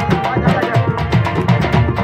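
Live Rajasthani folk music: a large hand-held frame drum beating a quick, steady rhythm, with a harmonium holding notes over it.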